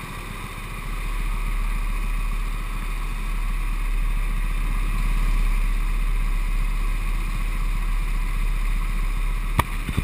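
Go-kart running at low speed and then standing in line, a steady low rumble carried through the kart-mounted camera. There is a sharp knock near the end.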